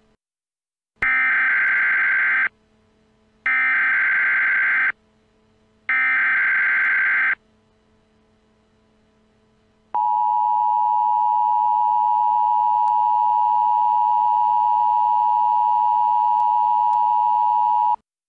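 Emergency Alert System tones: three SAME header data bursts, each a harsh electronic screech about a second and a half long, then the steady two-note EAS attention signal held for about eight seconds before it cuts off. Together they signal the start of a new alert message.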